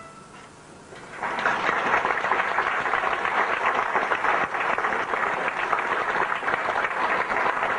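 Theatre audience applauding, breaking out about a second in and continuing steadily.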